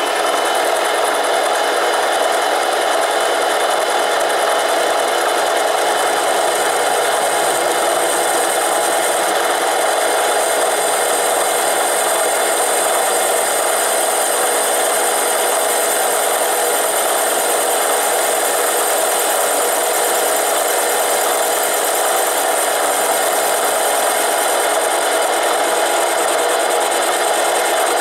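Harbor Freight 93212 7x10 mini lathe running at speed, its variable-speed motor and gearing making a steady whine with several held tones, including a high one. The tool bit is taking very light cuts off an aluminum lens barrel.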